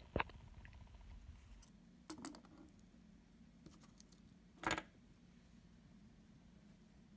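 Light taps and clicks of aluminium sheet parts and an aluminium rod being handled on a work surface: a sharp click right at the start, a few small clicks about two seconds in, and a louder knock a little before five seconds in.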